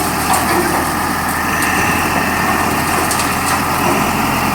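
Self-loading concrete mixer's engine running steadily, with a few light clicks over the hum.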